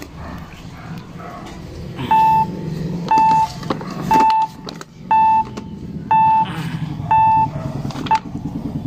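An electronic beeper sounds a short, steady, mid-pitched tone about once a second, six times in a row, starting about two seconds in. Under it there are scattered clicks and rustling as a rubber floor mat is handled.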